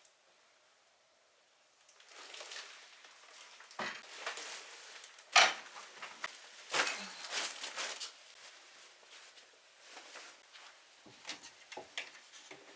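Crinkling and rustling of something being handled, starting about two seconds in, with irregular light knocks and clicks; the loudest crinkle is a little past the middle.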